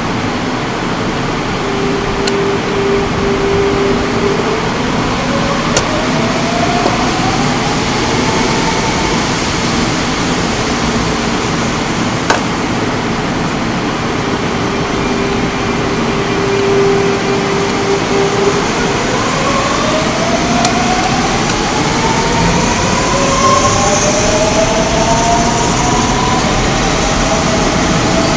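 Seoul Metro Line 4 4000-series electric multiple unit pulling away and accelerating, its traction inverter and motors making a steady tone that then rises in pitch. This happens twice: a few seconds in, and again past the middle as more cars pass. Steady wheel and rail noise runs under it, with a few sharp clicks.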